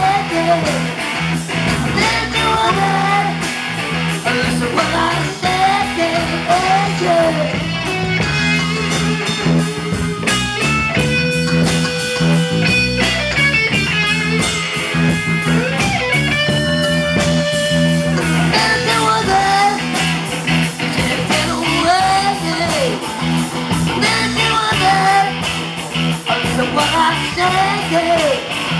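Live rock band playing an instrumental passage on electric guitars, bass and drums. A bending lead melody runs over a steady beat, with a stretch of long held high notes in the middle.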